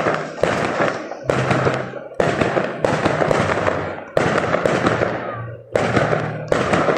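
Aerial firework shells bursting in quick succession: about six sharp bangs, each followed by a crackling decay of the glittering stars.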